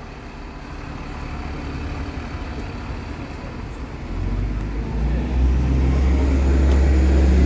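Bus engine running as the bus moves off and comes closer, a low rumble that grows steadily louder, with a deep hum getting much stronger about four seconds in.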